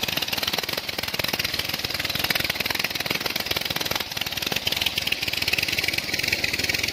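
Single-cylinder diesel 'dugdugi' engine running steadily with rapid, even exhaust beats as it drives a tube-well pump, over the steady rush of water pouring from the discharge pipe into a concrete tank.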